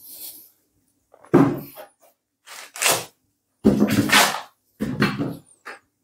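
Handling noises from a folding table with a wooden top and metal legs as its foam corner protectors are pulled off: about six short bursts of scraping, rustling and knocking, the loudest about two-thirds of the way through.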